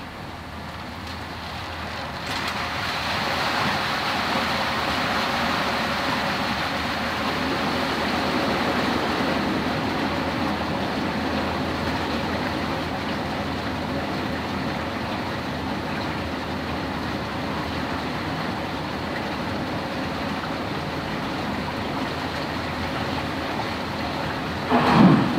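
A bore of water surging through a laboratory flume over a sand bed: a steady rush of turbulent water that builds up about two seconds in and keeps going. A brief, louder surge comes near the end.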